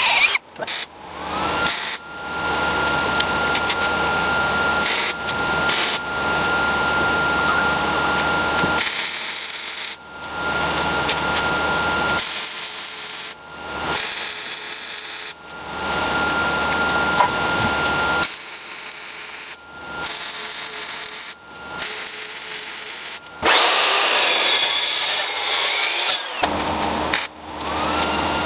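Electric power tool running: its motor spins up to a steady high whine, with rougher noisy stretches as it works, broken by several abrupt cuts between short runs.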